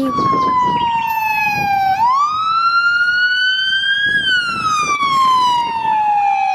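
Police car siren wailing, one tone sweeping slowly up and down. It falls for the first two seconds, swings back up, climbs gently until about four seconds in, then falls slowly again. Road traffic rumbles underneath.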